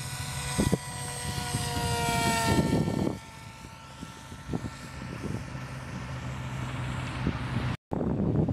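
HobbyKing Bixler model plane's electric motor and pusher propeller whining as it flies past, the pitch falling steadily over the first three seconds. The whine then drops away to a fainter low rumble, and the sound cuts out briefly near the end.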